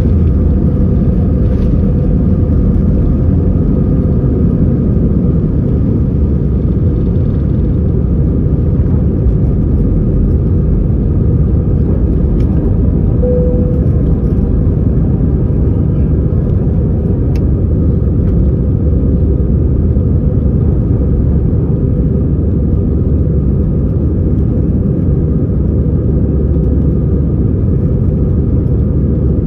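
Airbus A320's CFM56 jet engines and airflow, heard from inside the passenger cabin as a steady low rumble at takeoff power.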